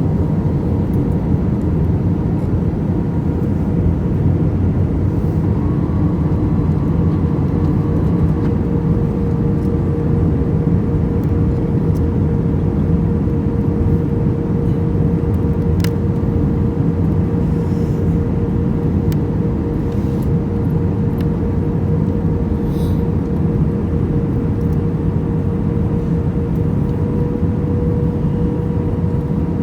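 Steady airliner cabin noise: a constant low engine and airflow drone with a steady hum, as during the approach to landing.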